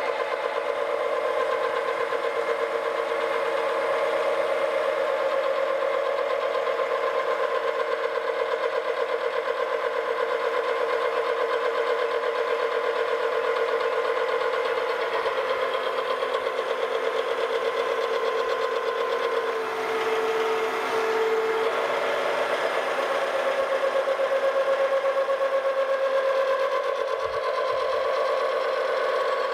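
Wells-Index vertical milling machine running, its 1-inch end mill cutting a radius into a metal bearing wedge as the table is hand-fed through the coordinates. The sound is steady, with a fast, even pulsing and a brief change in tone about twenty seconds in.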